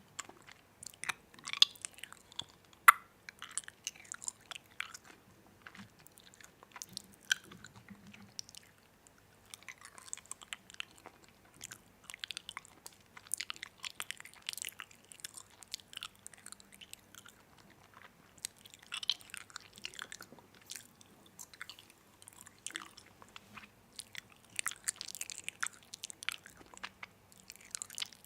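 Close-up chewing and biting of crunchy food: crisp crunches and clicks in irregular bursts, with short quieter pauses between mouthfuls.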